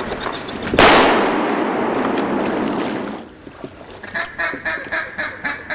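Mallard-type duck quacking in a quick, even series of about four quacks a second, starting about four seconds in. Before it, about a second in, a sudden loud blast trails off into a rushing noise over the next two seconds.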